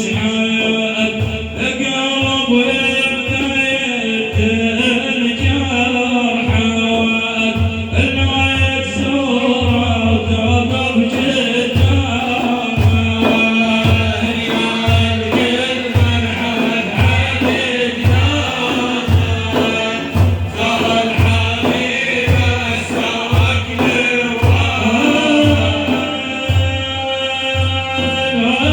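Madih, a devotional praise song for the Prophet, chanted by a male singer over a steady, regular low drum beat.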